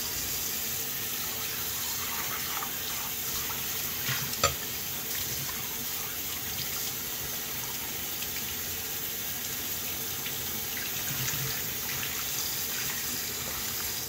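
Bathroom sink faucet running steadily while a stainless steel bowl is rinsed and scrubbed with a sponge under the stream. A single sharp knock sounds about four and a half seconds in.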